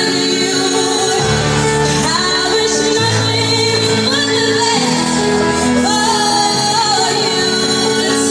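A woman singing a song live into a microphone over instrumental accompaniment, with low backing notes that change every second or two.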